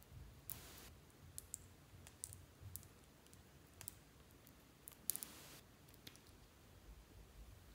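Faint plastic clicks and two short scrapes, about half a second in and about five seconds in, as a plastic spatula scoops red balm out of a small plastic cosmetic case.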